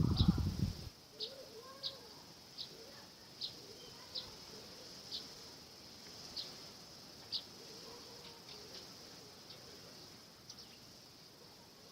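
Outdoor insect chorus: a steady high drone, with a short high chirp repeating roughly once a second and fading toward the end. A brief low rumble comes at the very start.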